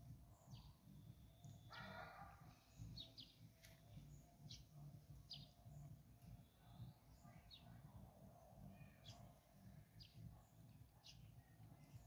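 Faint songbird chirps, short and high, about one a second, over a low rumble of background noise.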